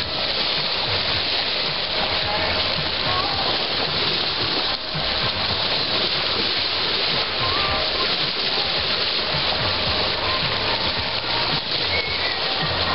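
Steady rushing and splashing of water along the hull of an aluminium sailing yacht under way, the bow wave breaking as the boat moves through the sea.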